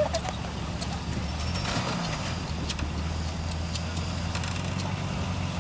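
Full-size 4x4 truck's engine running at low revs as it crawls over dirt mounds, a steady low hum with a slight change in pitch about two seconds in. Scattered short clicks and knocks ride over it.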